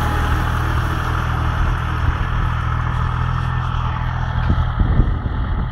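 New Holland TT55 tractor's diesel engine running steadily under load as it pulls a plough through the soil, its note fading near the end as the tractor draws away.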